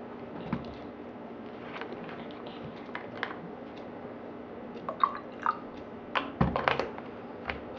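Scattered small clicks and taps of bottles and a cup being handled while lemon juice is added to the juice mix, over a faint steady hum. A cluster of louder clicks comes about six seconds in.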